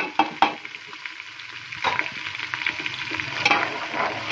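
Onions and ginger-garlic paste frying in ghee in an aluminium pressure cooker, sizzling as ground spices are tipped in and stirred with a steel slotted spoon. The spoon clicks sharply against the pot a few times, and the sizzle grows louder about two seconds in.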